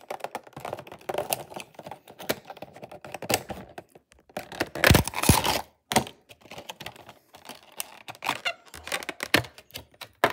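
Packaging of a Bachmann Toby model locomotive being handled and opened by hand: irregular clicks, taps and rustles, with a louder burst of rustling about five seconds in.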